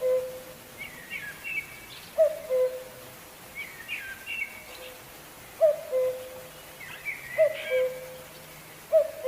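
Birds calling: a low two-note hooting call, a short higher note dropping to a longer lower one, repeats about every two seconds, with quicker, higher chirps between the calls.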